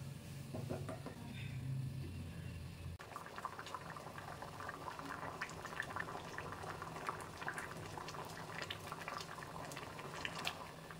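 Sambar boiling in a steel pot: a steady stream of small bubbling pops that starts abruptly about three seconds in. Before that, a wooden spoon stirs the pot over a low hum.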